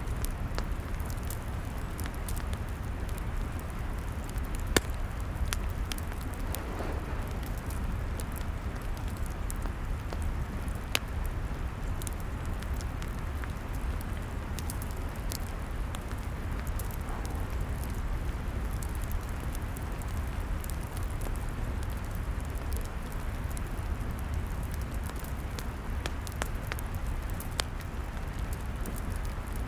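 Log fire crackling: scattered sharp pops and snaps over a steady low rumble, with a louder pop about five seconds in and another about eleven seconds in.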